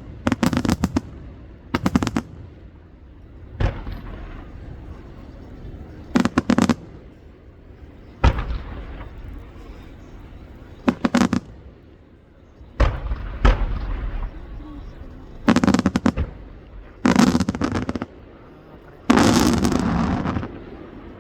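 Aerial fireworks shells bursting overhead: a series of about ten sharp booms, one to three seconds apart, some in quick clusters. Near the end comes a longer burst that crackles on for over a second.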